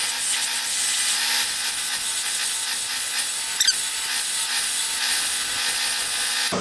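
A spindle gouge cutting a spinning walnut spindle on a wood lathe, a steady hissing cut over the lathe's faint motor hum, with one brief sharper scrape a little past halfway.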